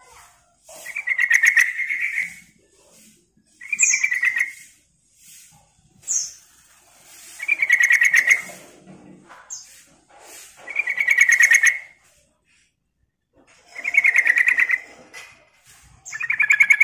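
Yellow-vented bulbul singing: six short, loud phrases of rapid chattering trills, about one every three seconds, several led by a thin high note. The last phrase is cut off.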